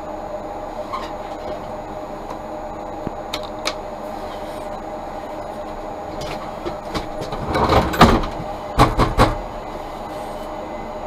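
Interior of a standing Tatra T3 tram with a steady electrical hum. A few light clicks come partway through, then a loud run of clattering knocks and rattles, followed by a few more knocks a second later.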